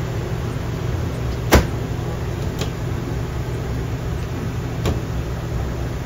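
A steady low hum with three sharp clicks as a gas stove and a microwave door are handled; the loudest click comes about a second and a half in.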